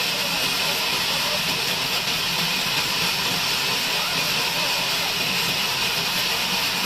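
Sawmill bandsaw running with a steady, even hiss.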